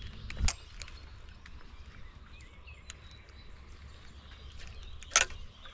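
Outdoor ambience by the water: a low wind rumble on the microphone with faint high bird chirps and scattered light ticks, broken by two sharp knocks, one about half a second in and one near the end.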